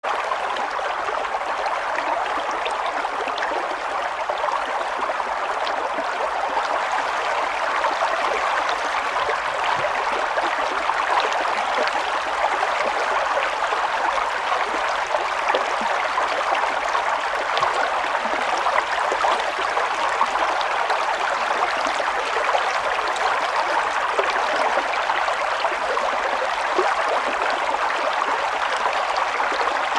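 Running water: a steady, even rush that does not change.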